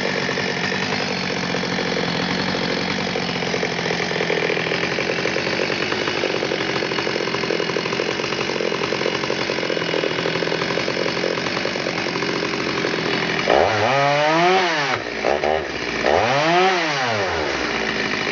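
Stihl 021 two-stroke chainsaw running steadily, then revved up and let back down twice near the end.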